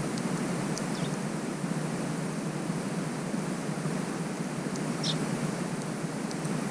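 Steady rushing outdoor noise, with a few brief, high-pitched small-bird chirps, one about a second in and another near five seconds.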